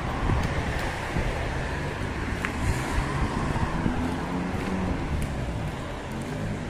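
Street traffic: cars driving on a wet road, engine and tyre noise swelling and fading.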